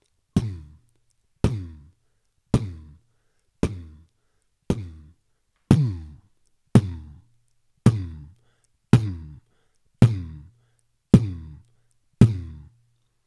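Beatboxed deep bass drum, 'Pmmm': a lip-popped 'p' running into a low hummed tone that sinks a little and fades. It is repeated twelve times at a steady pace of about one a second.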